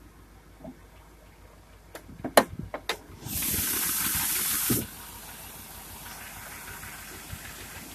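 A few clicks and knocks, then a 2001 GMC 2500HD's 6.0 L V8 starts cold. It runs loud for about a second and a half, then drops abruptly to a steady idle. The engine has a known lifter tick.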